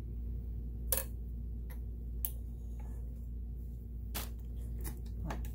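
A few separate sharp clicks from the control knobs of a Sears Kenmore 1802 sewing machine being turned to a new stitch setting, over a low steady hum.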